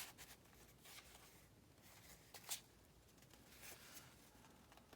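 Near silence with a few faint rustles of paper sheets being handled, the clearest about halfway through.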